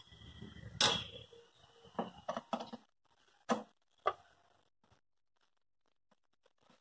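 Sharp clicks and knocks from a screwdriver and hands working the screws on the sheet-metal bottom cover of a DVR. There is one loud knock about a second in, a quick run of three clicks around two seconds, and two more a little later, then it goes quiet.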